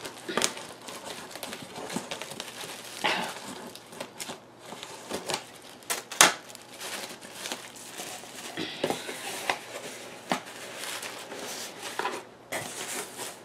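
Plastic bags and packing material crinkling and rustling as a shipping box of plants is unpacked by hand, with scattered light knocks and one sharper click about six seconds in.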